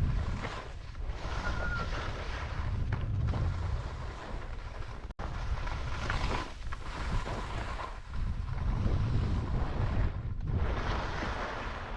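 Wind buffeting the microphone while skiing, with skis hissing and scraping through wet, heavy spring snow in swells that rise and fall turn by turn. There is a momentary break about five seconds in.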